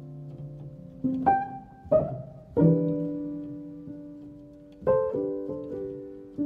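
Background piano music: slow chords with new notes struck every second or two, each fading away.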